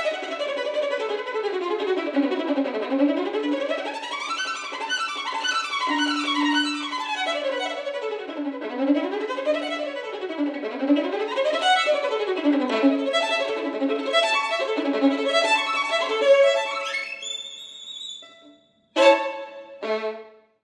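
Solo violin played with a bouncing spiccato bow stroke: fast, short notes running down and up in quick scales and arpeggios. The notes die away near the end, and two short, loud closing strokes about a second apart end the passage.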